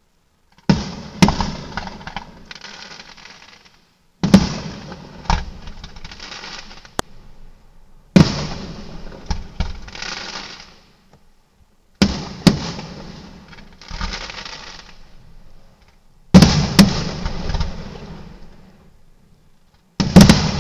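Aerial firework shells bursting in a display: six loud bangs about four seconds apart, each followed by a couple of seconds of crackling that dies away.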